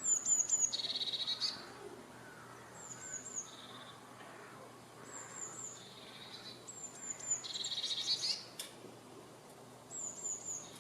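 A small songbird singing the same short song phrase about five times: a few quick, very high, thin notes, then a fast trill a little lower in pitch.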